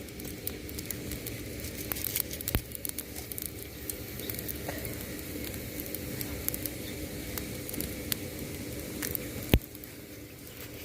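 Pot of thuthuvalai rasam heating on the fire, with a soft sizzling, crackling patter and many small scattered clicks; one sharper click about nine and a half seconds in.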